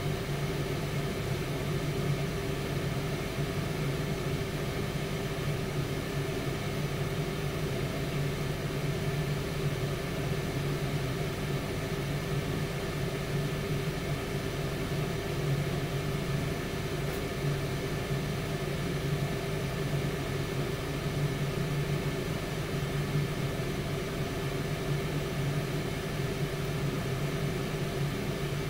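Tower air fryer oven running: the steady hum and air rush of its fan, without change.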